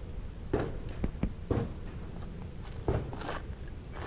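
A string of about five or six gunshots fired at an uneven pace during a draw-and-fire drill, emptying the magazine.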